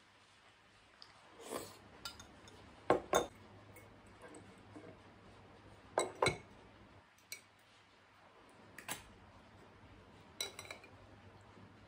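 Steel spoon and ladle clinking and knocking against bowls while serving and eating soup dumplings: a scattering of separate sharp clinks, the loudest pairs about 3 and 6 seconds in.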